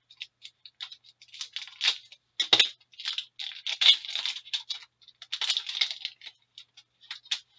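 Hockey card pack being opened and its cards handled: a run of crinkly rustling and scraping from the wrapper and the cards, with one sharper click about two and a half seconds in.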